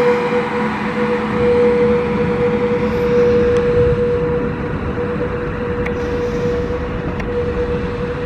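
Express passenger train hauled by a WAP-5 electric locomotive running at speed: a steady rumble with a constant whine over it, easing a little in the second half.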